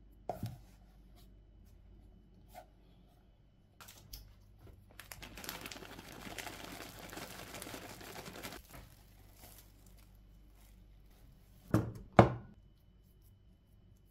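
Flaked almonds poured from a plastic packet into a bowl: a rustling, crinkling hiss lasting about three seconds. Near the end come two loud knocks, a fraction of a second apart.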